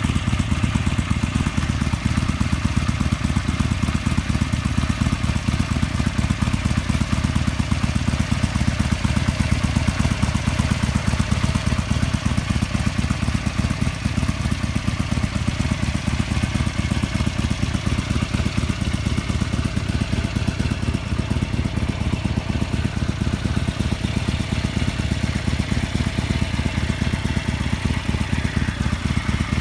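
2015 Harley-Davidson Sportster Seventy-Two's air-cooled 1200 cc V-twin idling steadily through its stock exhaust.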